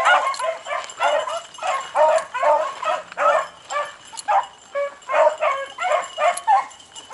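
A pack of beagles baying on a scent trail: short, repeated hound bays, about two a second, overlapping from several dogs.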